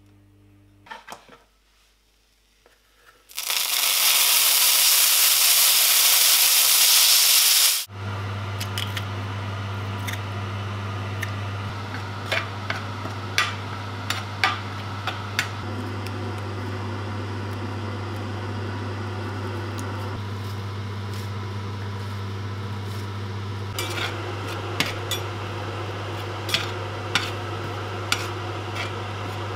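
Chopped tomatoes frying in hot oil in a cast-iron skillet: a loud sizzle lasting about four seconds, then a steadier, quieter sizzle. Through the quieter part come sharp clicks and scrapes of a spatula against the pan as the tomatoes are stirred, over a steady low hum.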